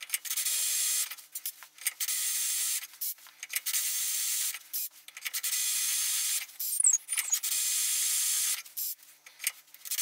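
Cordless drill running a diamond-grit holesaw into a broken high-speed-steel tap, a grinding hiss as the diamond slowly wears away the hard steel. It comes in about six bursts of a second or so, with short pauses between, and the footage is sped up four times.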